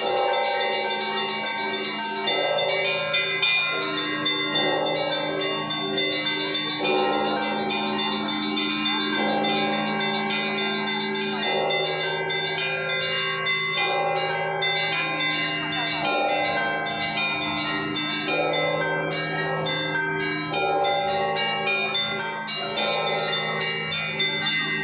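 Russian Orthodox church bells rung in a zvon. A deep bell is struck about every two seconds under quicker strokes on smaller, higher bells, and the tones ring on over one another.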